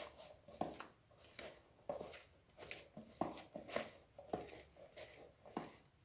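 Pizza dough of flour and lukewarm water being mixed and kneaded in a bowl: a faint, regular run of soft squishing and slapping strokes, one about every half second.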